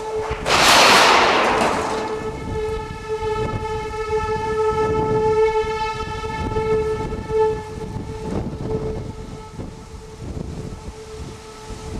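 A steady horn-like tone with several overtones, held for most of the stretch and slowly swelling and fading, over a rough low rumble. A loud rush of noise comes about half a second in and dies away within a second or two.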